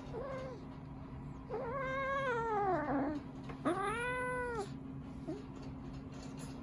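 Kitten meowing while play-fighting: a short mew, then two long drawn-out meows, the first sliding down in pitch at its end, and a brief squeak near the end, over a steady low hum.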